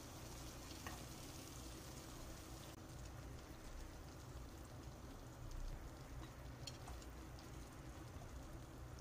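Faint, steady sizzling of pork and green bell pepper strips frying in a nonstick pan, with a few light clicks of wooden chopsticks against the pan as the food is turned and lifted.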